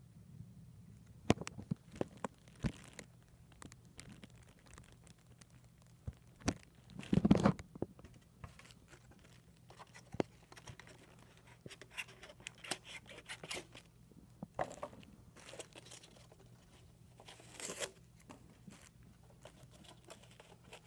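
Clear plastic wrapping crinkling and tearing as it is peeled off a model locomotive. The rustles and clicks come irregularly, with a louder burst about seven seconds in.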